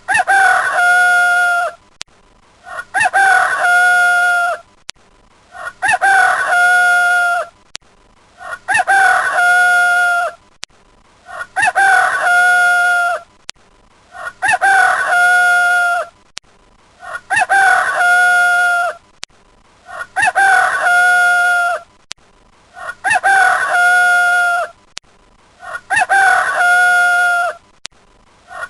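A rooster crowing cock-a-doodle-doo, one identical two-second crow repeated about every three seconds, ten times over, as a looped ringtone. A faint click comes just before each crow.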